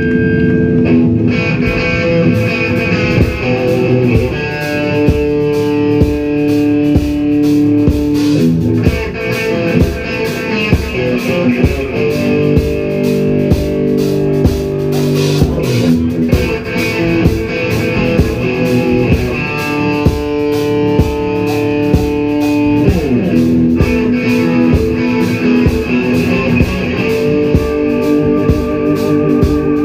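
Rock band playing live with no vocals: electric guitar, bass guitar and drum kit, the drums keeping a steady beat.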